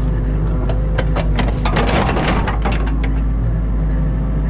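Excavator engine running steadily, heard from inside the cab. Between about one and three seconds in, the bucket tearing through wet soil and thicket roots gives a run of sharp cracks and crunching.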